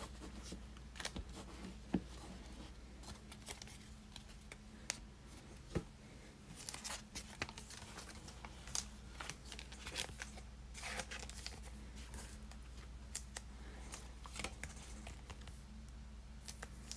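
Faint, scattered light clicks and rustles of trading cards and foil packs being handled on a table, over a low steady hum. The clicks are thickest in the middle of the stretch.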